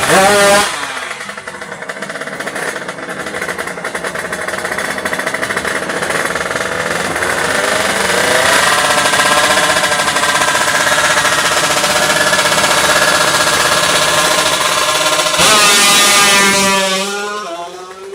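Two-stroke underbone drag motorcycles running hard: a loud burst of revving right at the start, then engines rising in pitch as they accelerate. A second loud rising run comes near the end before the sound drops away.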